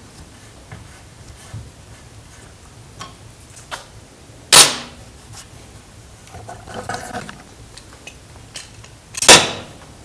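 Parts being handled on a workbench: two sharp knocks about four and a half seconds apart, with light clicks and a short rustle between them.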